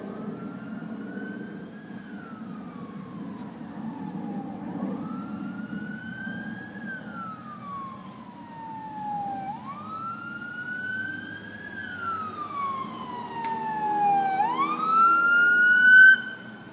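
Police car siren on a slow wail, its pitch rising and falling about every five seconds and growing louder as the cruiser approaches, then cutting off suddenly near the end.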